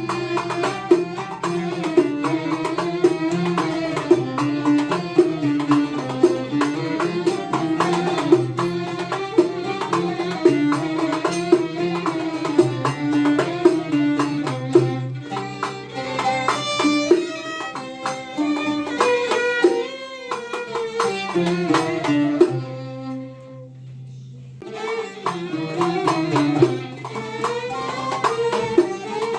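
Background music: traditional folk-style music with hand-drum percussion and a melodic instrument, thinning out briefly about two-thirds through before picking up again.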